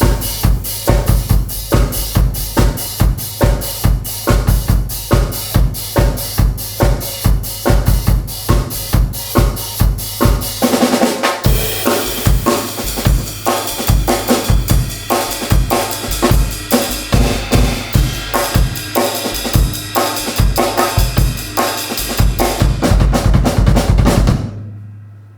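Drum kit played solo: a fast, steady groove of bass drum and snare with cymbals, growing into denser fills with more cymbal about ten seconds in. It builds to a loud cymbal wash and stops about a second before the end, the ring fading out.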